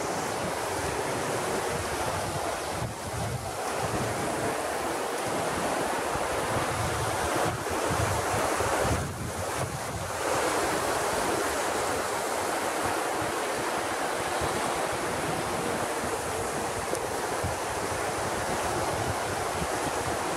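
Steady rushing of shallow river rapids, with wind buffeting the microphone in gusts.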